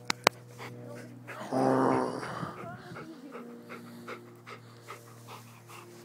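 A golden retriever panting close to the microphone, with one short, loud vocal sound from it about a second and a half in.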